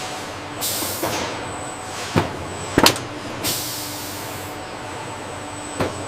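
Automated packaging machinery running steadily, with sharp mechanical clunks about 1, 2 and 3 seconds in and again near the end, and two hisses of released compressed air, one about a second in and a longer one midway.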